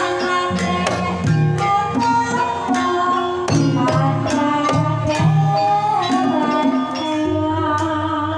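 Javanese Banyumasan tayub gamelan music: a sinden's solo voice over a microphone carries a gliding melody above kendang hand drums and mallet-struck keyed instruments playing repeated notes.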